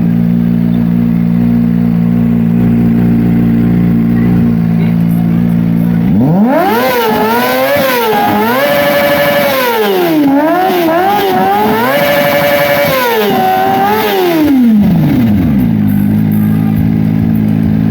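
Kawasaki ZX-25R 250cc inline-four motorcycle engine with an Akrapovic R8 aftermarket exhaust. It idles steadily, then about six seconds in it is revved hard several times in quick succession, the pitch climbing and dipping. After about nine seconds it falls back to idle.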